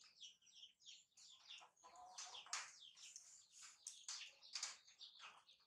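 Faint chirping of small birds: many short, high-pitched chirps in quick succession.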